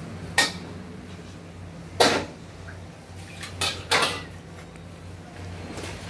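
Four sharp clinks and knocks of hard objects, the loudest about two seconds in and two close together near four seconds, over a steady low hum.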